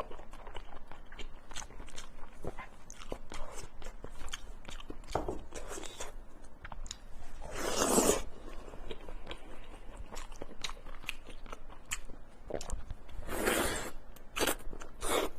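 Close-miked eating of pork belly: bites and chewing with many small wet mouth clicks. Two longer, louder rushes of sound stand out, about eight seconds in and again near the end.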